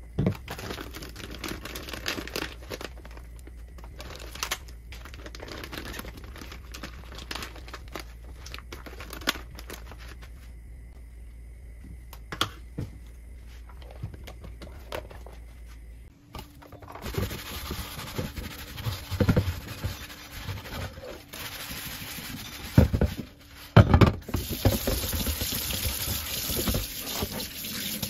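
Plastic bags of frozen fruit crinkling, with blender parts clicking on the counter. About halfway through, tap water starts running into a stainless steel sink while a cast iron grill pan is rinsed and scrubbed by hand, with a few loud knocks of the pan against the sink.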